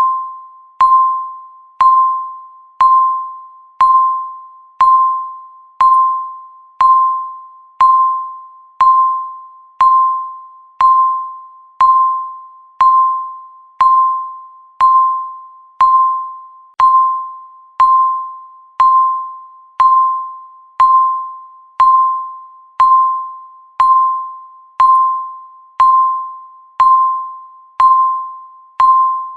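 Countdown timer's tick sound: a short, clear electronic ping once every second, each fading quickly before the next, steady and even throughout.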